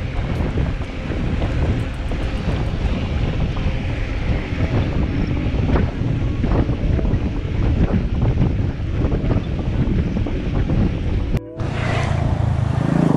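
Wind buffeting the microphone of a GoPro Hero 7 on a moving bicycle: a loud, steady rushing rumble. It cuts out abruptly for a moment near the end, then returns steadier.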